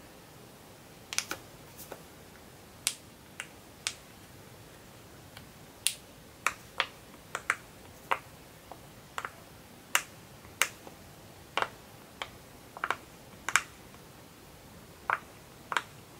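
Bubbles of a silicone pop-it fidget toy being pressed in by fingertips, each giving a sharp pop-click. About two dozen pops come one at a time at an uneven pace, starting about a second in, some in quick pairs.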